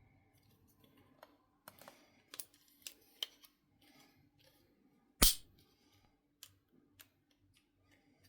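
A folding pruning saw being adjusted by hand: a run of small clicks and scrapes as the blade is centred and its quick-release knob tightened, with one sharp, loud click about five seconds in.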